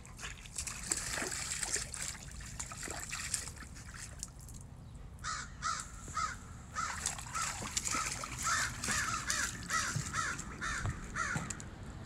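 Dog's paws splashing and stepping in a shallow stream over the first few seconds. From about halfway through, a bird calls over and over with short harsh calls, about two a second, ending shortly before the end.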